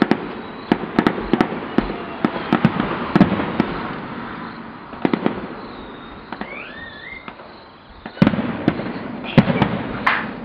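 Fireworks and firecrackers going off: rapid strings of sharp pops for the first few seconds, a single bang about halfway, a short whistle gliding up and down just after, then a few louder bangs near the end.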